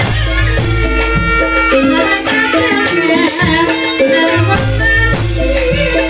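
Javanese gamelan music for an ebeg hobby-horse dance, with pitched metal percussion and drums playing. A deep low stroke sounds near the start and again about five seconds in.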